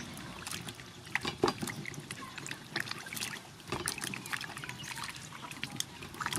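Hands washing cucumbers in a basin of water: water sloshing and splashing irregularly, with many small splashes and knocks as the cucumbers are rubbed and turned.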